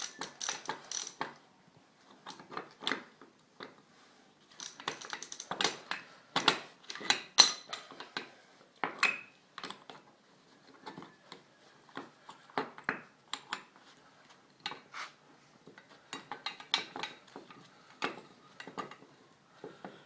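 Ratchet wrench clicking in short runs, with metal tools clinking, as the screw of a bushing press is cranked against a control arm bushing.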